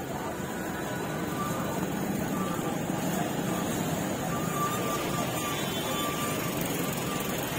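Busy street-market ambience: a steady din with a motor vehicle engine running and faint distant voices.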